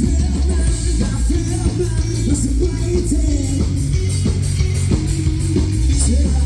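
Live rock band playing a song loudly, with a heavy bass, electric guitar and drums with cymbal hits.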